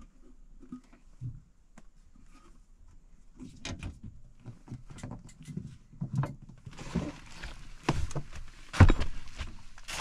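Sheet-metal furnace access door being handled and fitted back onto the cabinet, which closes the door safety switch: a series of knocks and clanks, growing louder, the loudest about nine seconds in, with a steady hiss joining from about seven seconds in.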